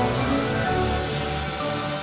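Background music: sustained instrumental notes changing in steady succession.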